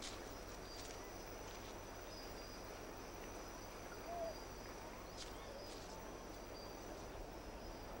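Faint forest ambience: a steady high insect drone, a few scattered clicks, and one short soft call about four seconds in.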